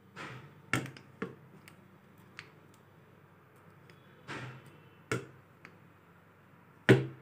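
Scattered clicks and knocks of handling as a plastic Beyblade string launcher is fitted onto a heavy homemade metal Beyblade built from a motorbike coil. There are about six separate knocks, the loudest near the end.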